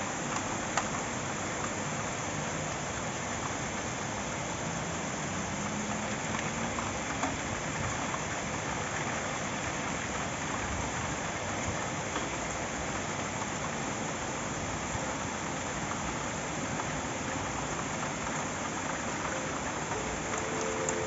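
Heavy rain pouring down steadily, the even hiss of a summer downpour on trees and rooftops, with a couple of single sharp drip ticks.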